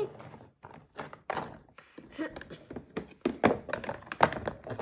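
Irregular taps and clatters of a plastic food container and its lid being handled on a tabletop, two louder knocks near the end.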